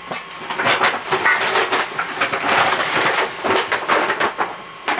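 Plastic grocery bags crinkling and rustling as items inside are rummaged through, a busy run of crackles and small knocks.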